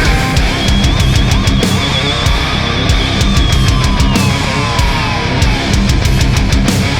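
Loud heavy metal music with pounding drums, and a held, wavering lead note in the first few seconds.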